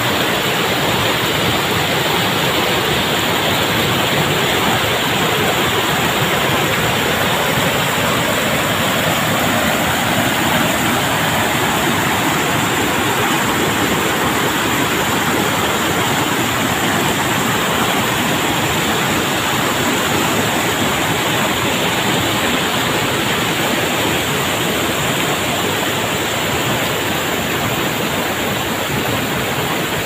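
Loud, steady rush of river water tumbling over rocks in small rapids and cascades.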